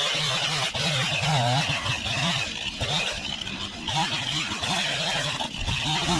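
Stihl MS 271 two-stroke chainsaw running and cutting wood from a downed almond tree, its engine pitch wavering up and down with the load.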